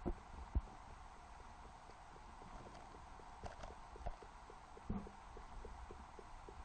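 Sound picked up underwater by a submerged camera: a steady hiss with scattered sharp knocks and clicks, and over the second half a run of faint ticks about four or five a second, as fish move around the baited hook and stir up the shell-covered bottom.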